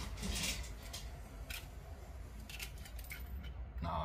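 Quiet handling noise of a compact film camera being reassembled: small clicks and scrapes as its plastic front cover is fitted back onto the body.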